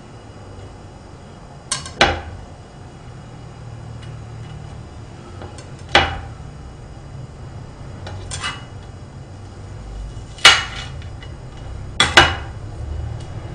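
Kitchen knife chopping onion on a cutting board: single sharp knocks every few seconds, some in close pairs.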